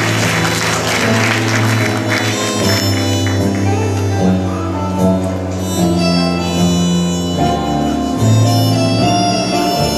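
Instrumental intro of a karaoke backing track playing over a hall's PA speakers, with a held melody line over bass notes. Applause dies away over the first couple of seconds.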